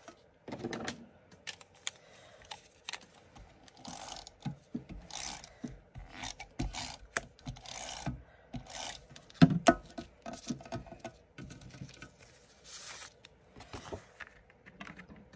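Cardstock being handled and slid about on a craft mat: brief paper swishes and rustles with scattered light taps and clicks, and one louder knock about nine and a half seconds in.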